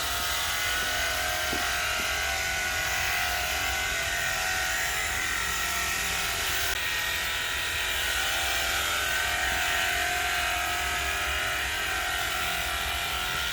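Cordless battery-operated pressure washer running steadily while spraying, its small electric motor and pump giving an even hum of several tones.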